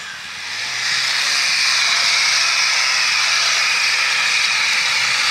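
Loud, steady hiss of steam pouring off a modified off-road 4x4 as it churns in deep mud. The hiss builds over about the first second, with the engine running low beneath it.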